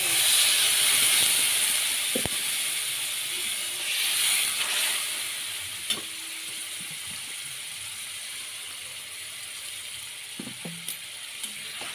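Water poured into a hot kadai of oil-fried bitter gourd and moong dal, hissing and sizzling loudly at first and swelling again briefly, then settling into a quieter steady sizzle. A few light clicks of the metal spatula against the pan.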